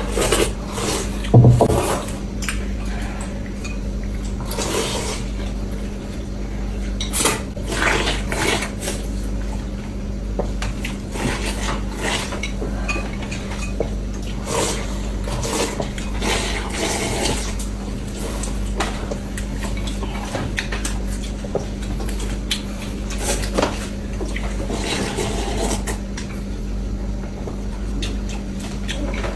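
Eating utensils clinking and knocking against bowls of noodles, in scattered short strikes with one louder knock about a second and a half in, over a steady low hum.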